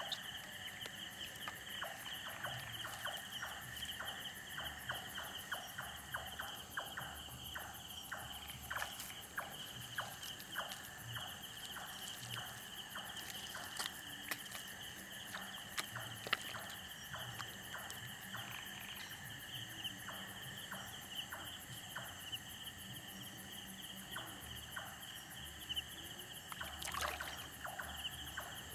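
Night chorus of crickets and other insects: a steady shrill trill at two pitches, the lower one dropping out about a quarter of the way in. Many short clicks run through it, and a louder rush of noise comes in near the end.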